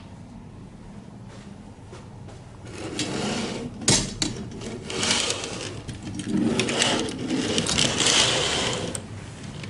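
Window curtain being pulled aside along its track: several scraping, rattling slides starting about three seconds in, with a sharp click near four seconds, over a steady low hum.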